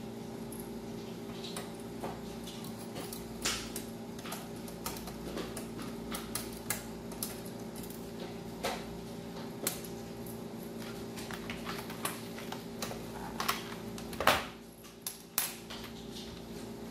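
HP laptop's plastic case being handled and worked apart: scattered clicks and light taps, with a louder knock about 14 seconds in, over a steady low hum.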